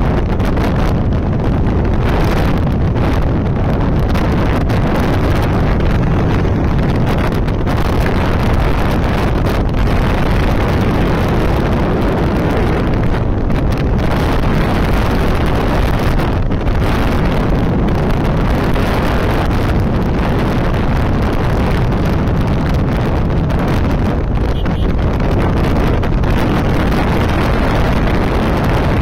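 Steady, loud wind rushing over the microphone of a Hero Honda CBZ 150 motorcycle ridden at cruising speed, with its single-cylinder engine running underneath.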